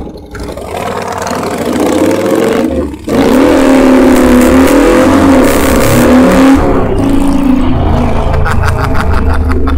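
Motorcycle engine pulling away from a stop and accelerating, building over the first few seconds. There is a short break about three seconds in, then it runs loud and steady under throttle before easing off somewhat near the seven-second mark.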